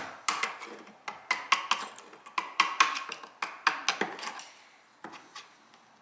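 Irregular series of sharp taps and knocks, some ringing briefly, as a chisel is worked against a glued-on wooden piece of a cabinet leg to break it loose; the strikes thin out about four and a half seconds in.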